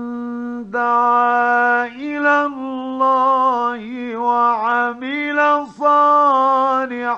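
A male Qur'an reciter chanting in the melodic mujawwad style, holding long notes with wavering turns between them and short breaks, heard on an old 1950s radio recording.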